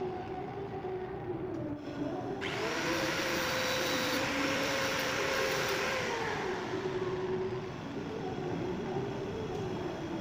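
Small electric angle grinder running with a steady motor whine. From about two and a half seconds in to about seven seconds its abrasive disc grinds an old steel hand tap down to size, adding a loud grinding hiss, then it runs on without load.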